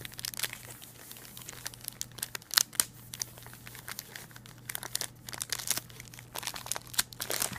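Plastic trading-card pack wrappers crinkling and being torn open, in a rapid, irregular run of crackles, with a faint steady hum underneath.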